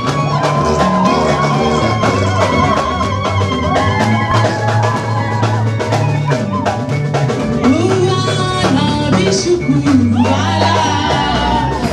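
Live church band with a drum kit playing loud dance music while a choir sings along.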